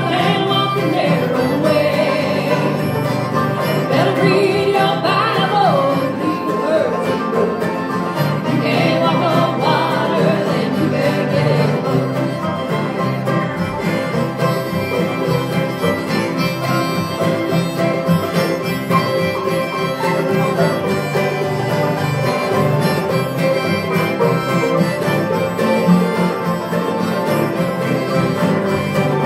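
Live acoustic bluegrass band playing a tune on guitars, mandolins and banjo, with steady strummed rhythm under a melody line.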